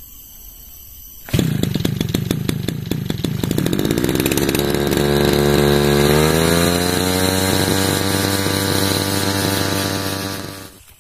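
Backpack brush cutter's small two-stroke engine firing up about a second and a half in, running unevenly at first, then settling into a steady idle that rises slightly in pitch around six seconds. The sound fades out near the end.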